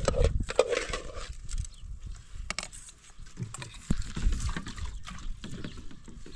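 Metal cooking pots being handled by hand, with scattered knocks and clinks. A rough, noisy sound opens the first second and is the loudest thing here.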